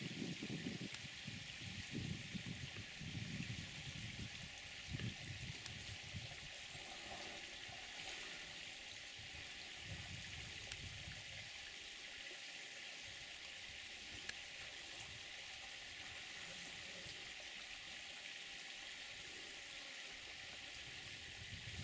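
Faint waterhole ambience: a steady high hiss with soft low rumbles now and then.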